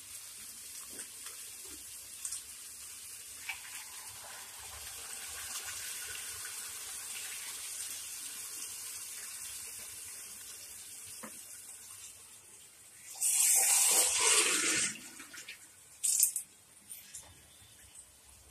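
Water being poured jugful by jugful into a kadai of sautéed vegetables, adding the cooking water for rava kichadi. A soft, steady pour runs through most of it, then a louder, heavier pour starts about thirteen seconds in and lasts about two seconds, with a short splash about three seconds later.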